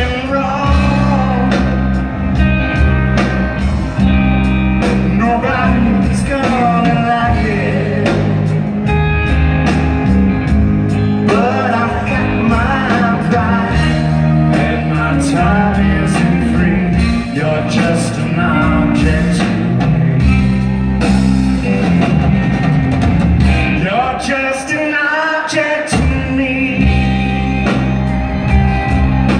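Rock band playing live and loud: electric guitar and bass over drums and cymbals, with a bending lead melody line.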